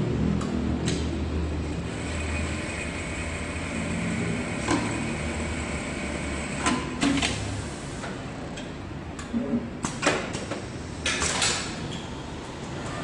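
Automatic placket setting machine with a Brother S-7300A single-needle direct-drive lockstitch head working through a cycle: a low hum with a steady high whine through the first half, then a series of sharp clicks and short hissing bursts in the second half, typical of the pneumatic clamps and air on such a machine.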